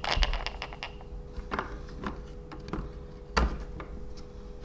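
Light clicks and knocks of 3D-printed plastic gears and a steel shaft being handled and seated into a plastic gearbox housing, a handful of separate taps with the loudest a little after three seconds in.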